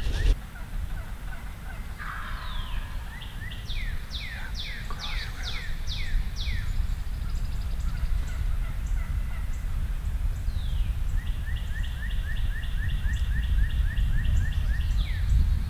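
Turkey yelping: a run of about eight short notes, each falling in pitch, a few seconds in, then a faster run of about a dozen near the end, over a steady low rumble.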